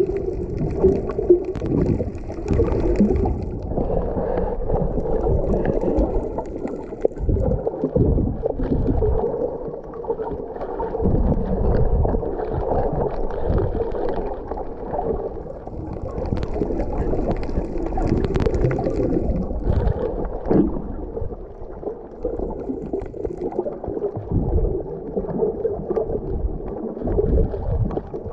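Muffled gurgling and sloshing of water heard with the microphone underwater, a churning wash that rises and falls without letting up.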